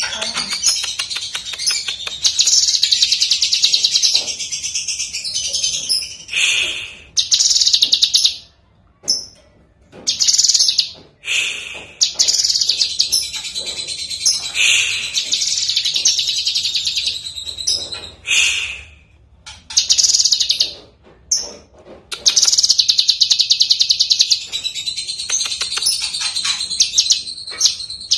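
Cucak kinoi (blue-masked leafbird) singing in long bouts of rapid, varied chattering song, broken by short pauses, with a few brief wing flutters as it hops about its cage.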